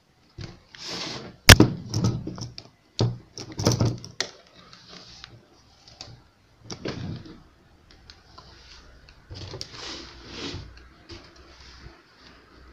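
Knocks and rustling as handmade cardboard containers on a round organiser base are handled and shifted on a wooden table, with a sharp knock about a second and a half in.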